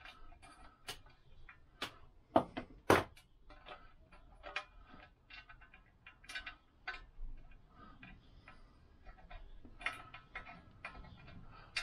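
Irregular light metallic clicks and taps of a screw and fingers against a Lambretta scooter engine's metal cowling as a screw is fiddled into its hole, which is not lining up. Two sharper clicks come about two and a half and three seconds in.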